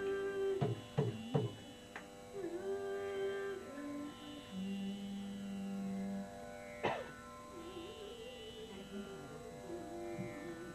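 Carnatic devotional singing: a woman's voice sliding between long held notes over a steady drone. There are a few sharp drum strokes in the first two seconds and one more about seven seconds in.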